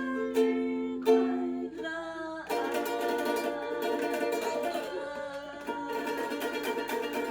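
Kala Watermelon fruit ukulele being strummed: a few separate chord strums, then from about two and a half seconds in a faster, fuller run of strumming.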